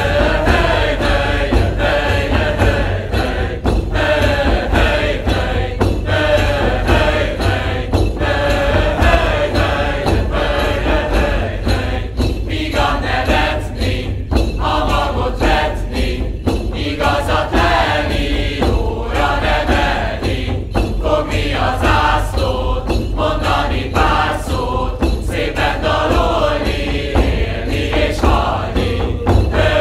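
Background music: a group of voices chanting a song in unison, with frequent drum strikes throughout.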